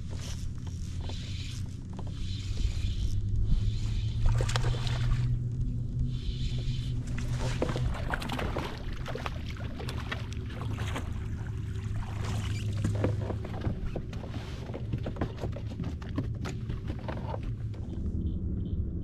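Kayak moving on the water: water splashing and lapping against the hull, with scattered knocks and clicks over a steady low rumble.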